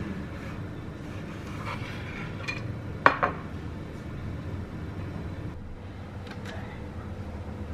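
Kitchen utensils clinking against crockery: chopsticks and a knife knocking on a ceramic bowl and a wooden cutting board. A few light clicks are followed by one sharp ringing clink about three seconds in, over a steady low hum.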